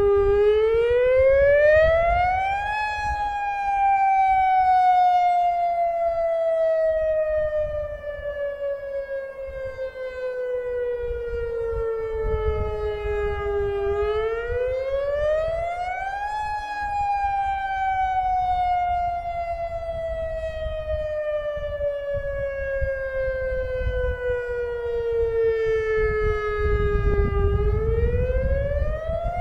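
Federal Signal outdoor warning siren sounding a wail in a lahar warning siren test. The pitch climbs over about three seconds, then slides slowly down for about eleven seconds; this happens twice and it starts climbing again near the end. A second, fainter siren glides in the distance partway through, over a low rumble.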